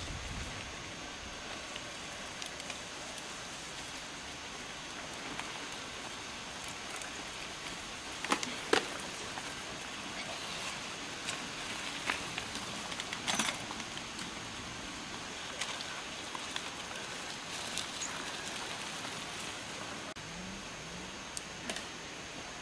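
Mountain bikes riding past on a dirt trail: scattered short clicks and rattles of chains and frames over a steady hiss, the loudest clusters about 8 and 13 seconds in.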